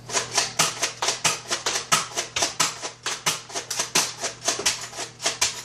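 Toy Nerf blaster being rapid-fired, a fast, even run of sharp clicks and snaps, about six a second, that stops when the blaster runs out of darts.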